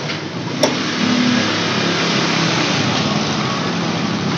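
Road traffic: motor vehicle engines running steadily, with one sharp click about two-thirds of a second in.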